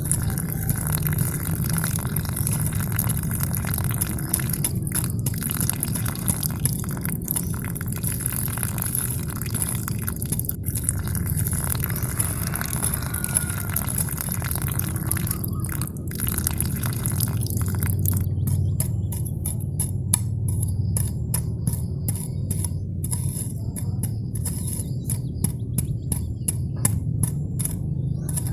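Steady splashing of a thin stream of water pouring from a small pipe into a shallow muddy pool.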